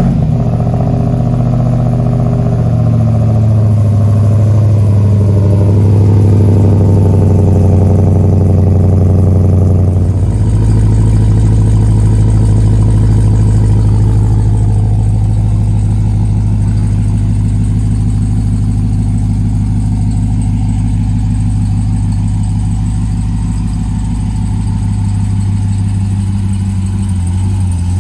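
Supercharged Hellcat Hemi V8 in a Jeep Gladiator idling just after a cold start: a fast warm-up idle that eases down, then steps to a lower, steady idle about ten seconds in.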